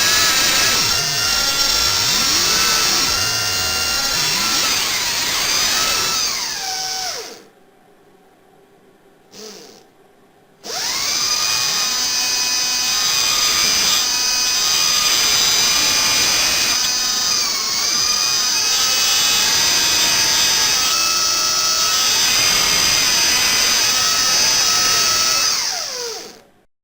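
Dental drill whining at a high pitch, dipping in pitch now and then. It stops for about three seconds, with one short burst in the gap, then runs again until it cuts off near the end.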